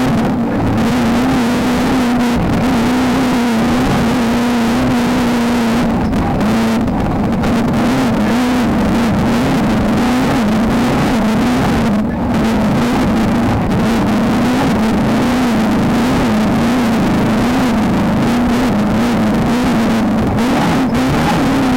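Off-road race car's engine running hard under load, its pitch wavering up and down as the revs rise and fall, over a constant rush of wind and road noise. It eases off briefly twice, about six and twelve seconds in.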